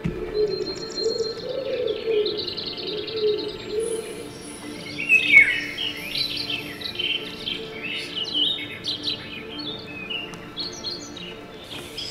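Birdsong, with many quick chirps and rapid trills, over a low sustained musical tone that wavers in pitch during the first few seconds.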